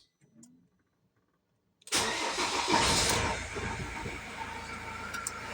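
Ford Transit Mk7 engine starting about two seconds in, catching at once, running louder for a second or so, then settling to idle.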